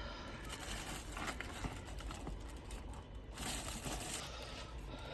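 Plastic rubbish bag crinkling as it is handled, with a few small knocks.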